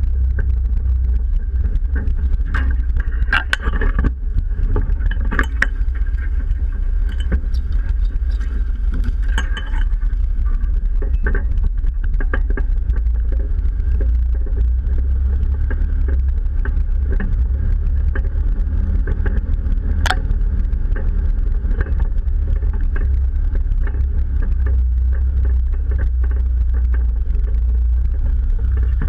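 Jeep running slowly over a rough trail: a steady low engine and drivetrain rumble, with scattered knocks and clicks from the body and suspension over bumps.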